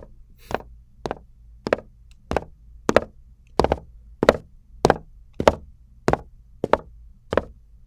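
Recorded footstep sound effect played back as an even walking pace of about twelve steps, roughly 1.6 per second. The steps grow louder toward the middle and then fade, with volume and Doppler-style pitch automation making a walker approach and pass by.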